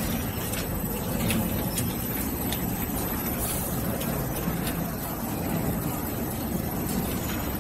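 Rotating perforated stainless-steel drum of a potato chips production line running with potato chips tumbling inside: a steady low mechanical rumble with scattered light clicks.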